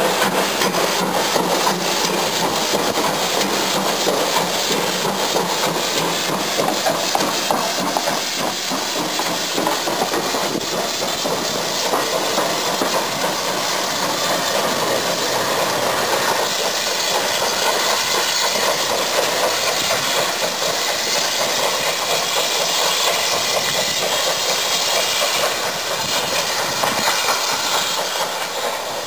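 GWR Hall class 4-6-0 steam locomotive No. 5972 Olton Hall under steam, running on the rails and moving away, with steam hissing. The sound is steady and loud throughout and eases slightly near the end.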